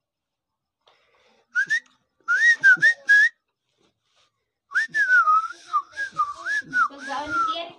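A person whistling in short, warbling bursts: a few quick whistles about a second and a half in, then a longer run of wavering notes, rising and falling, from about five seconds in.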